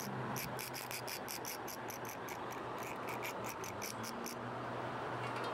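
An insect chirping in a fast, even train of high-pitched pulses, about five a second, that stops about four seconds in, over a faint low steady hum.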